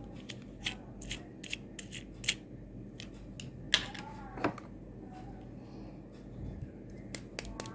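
Irregular sharp clicks and taps of small hard objects, about a dozen of them. The two loudest come a little before and a little after the middle.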